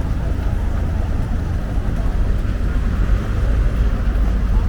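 Busy street ambience while walking: a steady low rumble of road traffic with faint crowd voices underneath.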